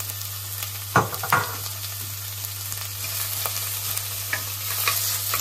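Chopped red onion, garlic and red peppers sizzling in olive oil in a stainless steel saucepan while being stirred with a wooden spoon, with small clicks and scrapes of the spoon against the pan. Two sharp knocks come about a second in, the loudest sounds here.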